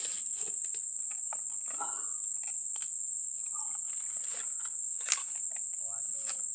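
Steady high-pitched buzzing of insects, with a few faint knocks and one sharp click about five seconds in.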